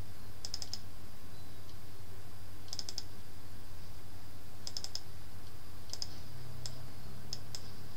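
Computer mouse button clicking: three quick double-clicks about two seconds apart, then a few single clicks near the end, over a steady low electrical hum.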